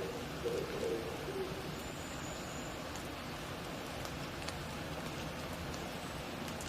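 An oriental turtle dove cooing a few low notes in the first second and a half, over a steady hiss of rain and dripping in the forest. A thin high note sounds about two seconds in, and there are a few faint ticks of drops.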